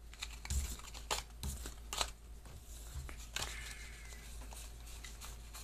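Trading cards being handled and straightened into a stack by hand: scattered soft rustles and a few light clicks of card stock.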